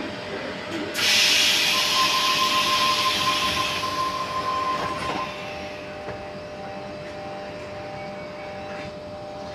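Sydney Trains Tangara set's doors closing: a sudden loud hiss about a second in, with a steady tone over it, fading out by about five seconds. A quieter, broken tone follows.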